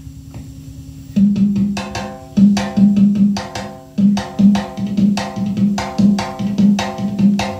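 Music played back from a cassette on a Technics M-215 stereo cassette deck: after about a second of faint hiss, a song's percussion-led intro comes in, with a steady rhythm of struck, pitched beats over a low held note, about two to three strokes a second.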